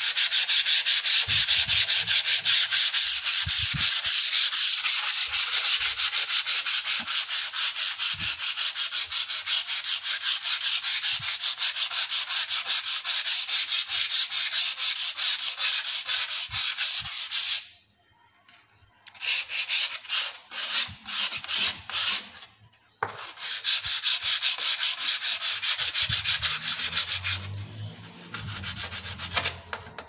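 Hand-sanding a varnished wooden panel door with a folded sheet of sandpaper: fast, even back-and-forth rasping strokes. They stop briefly a little past halfway, come back in short runs, then carry on more lightly near the end.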